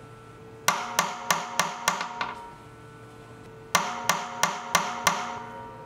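Hammer tapping a pointing tool into the oak chime of a wine barrel, pressing the wood shut over a leak. There are two runs of five sharp, slightly ringing strikes, about three a second, with a pause of about a second and a half between them.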